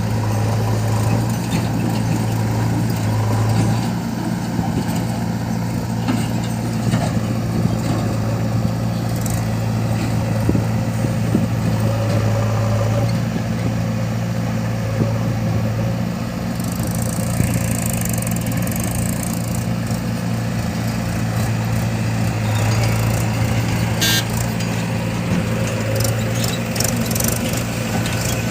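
Heavy diesel engine running steadily with a deep, even hum.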